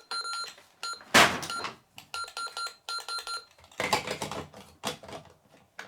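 Toy cash register beeping: a string of short electronic beeps at one pitch over the first few seconds, with a loud plastic clatter about a second in and more knocks and rattles from handling the toy after that.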